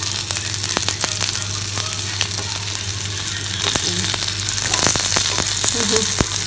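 Coated fish steaks shallow-frying in a nonstick pan, sizzling steadily, with scattered clicks and scrapes of a wooden spatula against the pan as a steak is lifted to be turned.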